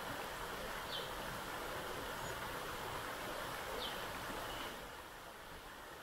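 Steady rush of water from a forest waterfall and stream, with a bird giving two short high chirps. The water noise drops somewhat about five seconds in.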